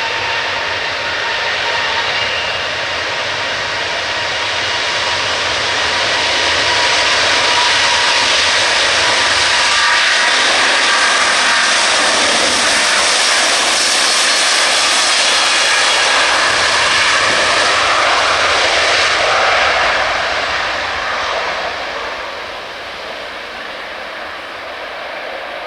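Airbus A350-1000's Rolls-Royce Trent XWB-97 turbofans at takeoff thrust: a steady whine over a loud roar that swells to its loudest through the middle and fades over the last few seconds as the jet draws away.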